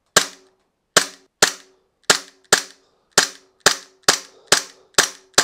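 Umarex Glock 17 Gen 4 CO2 blowback BB pistol firing in quick succession: about eleven sharp shots, roughly two a second, each followed by a short ring.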